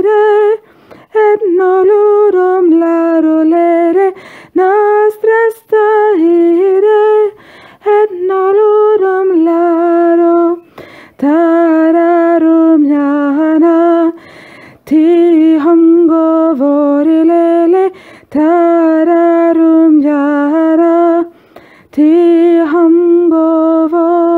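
A woman's voice singing a Balkan folk song a cappella: the single 'black' voice part of a two-part arrangement. It comes in phrases of about three seconds with short breaks between them.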